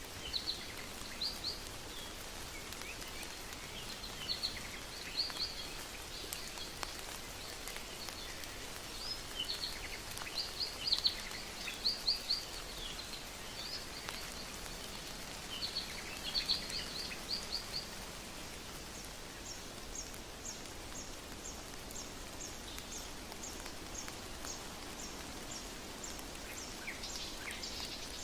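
Jungle ambience: a steady background hiss with bird calls, bursts of short high chirps and trills for most of the first two-thirds. After that comes an even, high ticking call repeated about twice a second.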